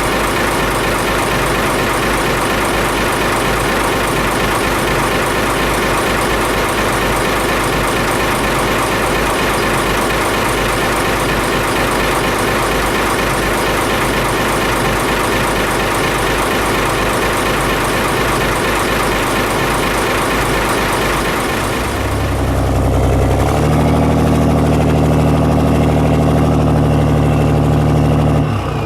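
Yanmar 6CX-ET six-cylinder marine diesel running steadily with a loud, even clatter. About 22 seconds in the sound changes: the high hiss falls away and a deep, steady hum takes over.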